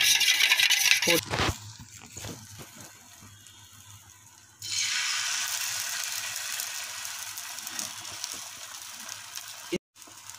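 Egg being beaten fast in a steel bowl, a rapid metal clatter for about the first second and a half. About four and a half seconds in, the beaten egg poured onto a hot tawa starts sizzling, a steady hiss that slowly fades.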